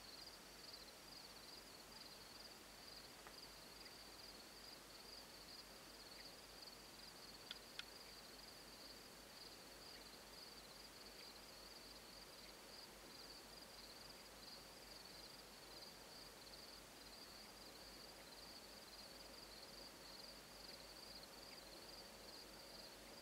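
Near silence, with insects trilling faintly and steadily in a fast high pulse. Two soft clicks come about eight seconds in.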